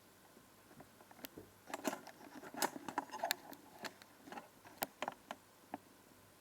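Handling noise at close range: a run of irregular light clicks, taps and short rustles, busiest between about two and three and a half seconds in.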